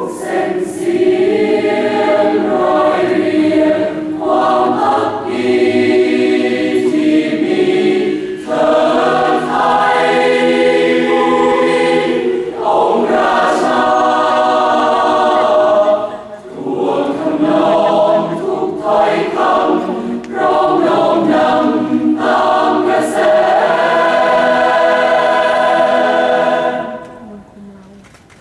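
Large mixed choir singing in harmony: sustained chords in phrases, with short breaths between them, dying away near the end.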